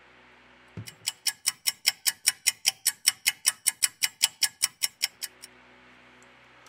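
Clock-ticking sound effect: even, sharp ticks at about five a second for roughly four seconds, after a soft thump. It counts off the three-minute wait while contact cleaner loosens the battery adhesive.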